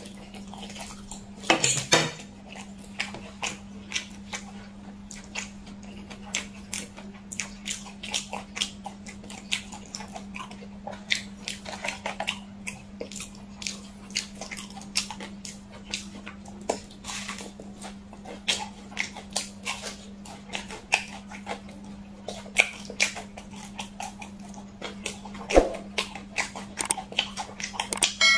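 Close-miked eating sounds: spicy instant noodles slurped from a fork, then sauce-glazed fried chicken bitten and chewed, with many short, wet mouth clicks. A steady low hum runs underneath.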